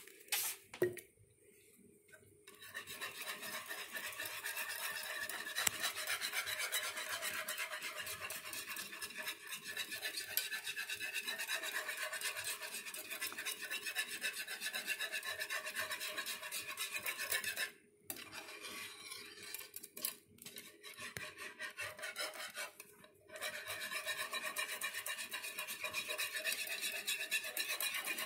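Wire whisk beating gravy in a metal skillet: a fast, steady scraping rasp of the wires against the pan. A couple of knocks right at the start, and the whisking falters briefly about two-thirds of the way through before it picks up again.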